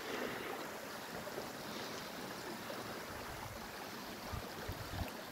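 Steady rushing of a nearby mountain stream, with a few soft thumps of footsteps on a dirt path.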